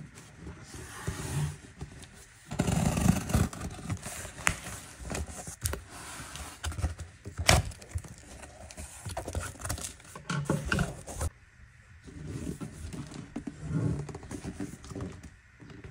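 Cardboard packaging being handled and opened: flaps rubbing and scraping, and an inner box sliding out of the outer carton, with irregular knocks and one sharp tap about halfway through.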